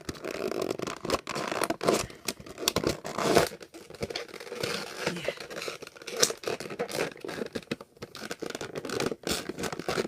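Plastic window packaging and cardboard box crinkling, crackling and scraping in fits and starts as a toy is worked out of it, with a few sharper snaps.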